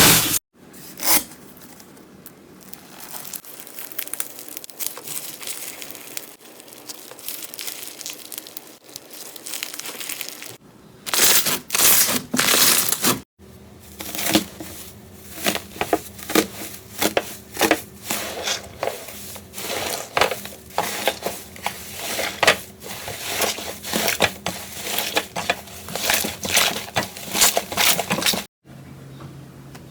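Slime being squeezed and poked by hand, giving crackling, crinkly pops and sharp clicks, several a second in the longer middle stretch. Two brief breaks split it into separate takes.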